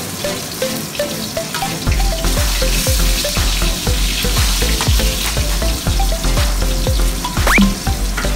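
Whole tilapia frying in hot oil in a wok, the oil sizzling and spitting, louder from about two seconds in, while a spatula nudges the fish.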